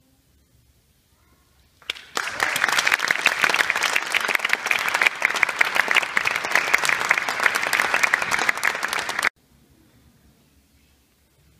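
Audience applauding, a dense patter of many hands clapping that starts about two seconds in, runs for about seven seconds and cuts off abruptly.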